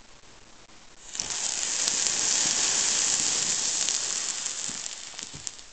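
Homemade sugar gunpowder in a tin can catching about a second in and burning with a loud hiss as it shoots up a tall, sparking flame. The hiss fades over the last couple of seconds, with a few crackles as it dies down.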